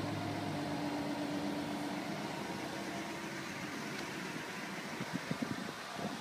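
Ford Mustang idling while parked: a steady low hum with a faint tone that fades about two and a half seconds in. Wind gusts buffet the microphone near the end.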